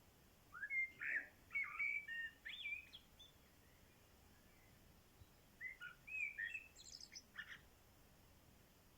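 Common blackbird singing: two phrases of whistled, warbling notes a few seconds apart, the second ending in a brief high twitter.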